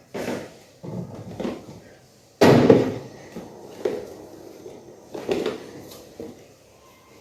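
Plastic food containers knocking and clunking as they are set into a fridge, about half a dozen separate knocks, the loudest a sharp bang about two and a half seconds in.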